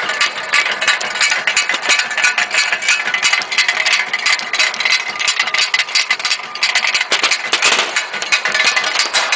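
ZP27D rotary tablet press running and pressing salt tablets: a fast, steady clatter of the punches working, with the finished tablets dropping from the discharge chute.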